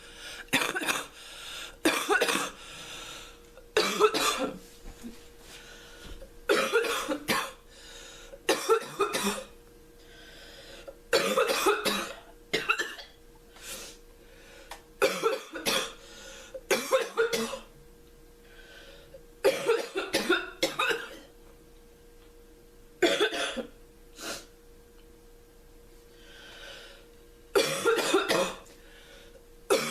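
A sick, congested girl coughing in repeated fits of one to four coughs every few seconds, the cough going back and forth between wet and crackly and deep and barky, with breaths drawn between fits.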